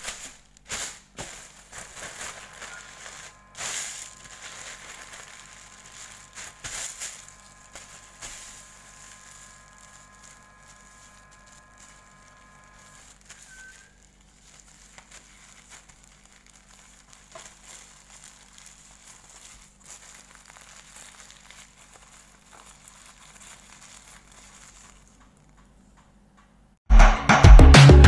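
Thin plastic bag crinkling and rustling as it is smoothed flat and folded by hand, with scattered small crackles, busiest in the first several seconds. Near the end, loud music cuts in suddenly.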